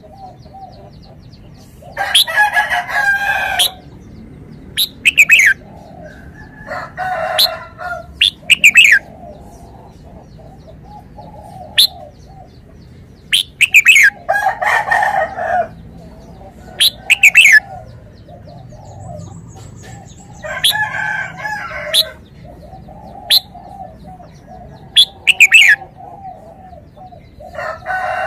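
Red-whiskered bulbul singing short, loud whistled phrases that fall in pitch, repeated every few seconds. About four longer, lower, harsher calls of a second or two each are mixed in.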